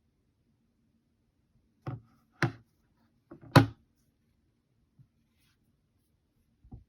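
A few sharp knocks and taps on a hard surface, like a phone or small object being handled and set down: three close together about two to four seconds in, the third the loudest, then a faint tick and a small knock near the end, in a quiet room.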